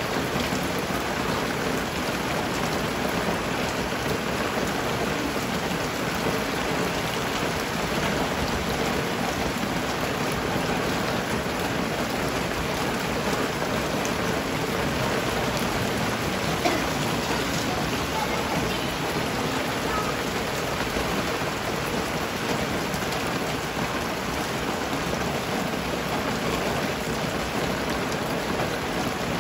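Steady rain falling as an even hiss, with one small tick about two-thirds of the way through.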